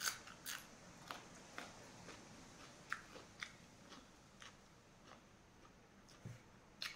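A person biting and chewing crunchy fried green chilies close to the microphone: soft crunches and mouth clicks about every half second at first, thinning out to occasional clicks, with one sharper click near the end.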